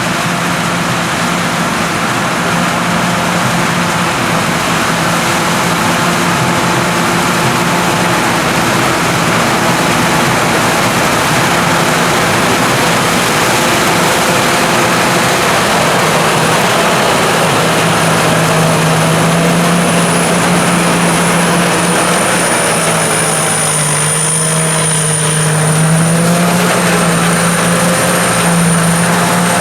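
Corn combine harvester running steadily, its engine hum mixed with the rush of its working machinery and a thin high whine over the top. The engine note shifts slightly about two-thirds of the way through.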